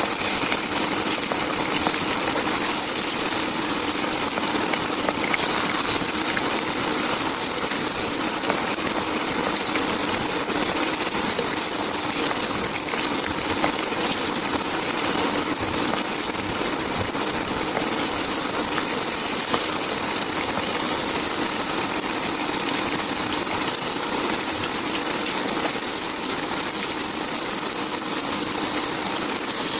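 Coated milkfish deep-frying in hot oil, a loud, steady sizzle with no let-up.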